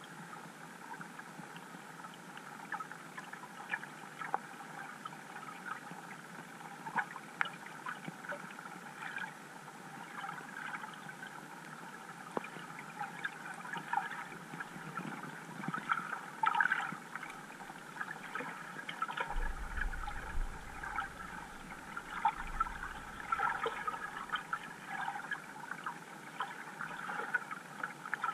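Underwater ambience recorded by a GoPro in its waterproof housing: a steady watery hiss dotted with many small clicks and crackles. A low rumble comes in about two-thirds of the way through.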